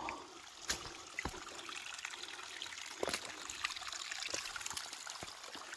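Water trickling and running steadily, like a small stream or runoff after rain, with a few sharp clicks and knocks scattered through it.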